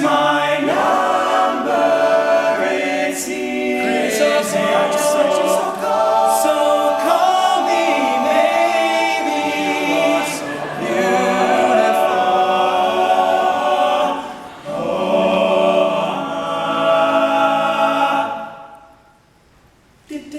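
All-male a cappella group singing in close multi-part harmony, with no instruments; the singing fades out about two seconds before the end, leaving a short near-silent gap.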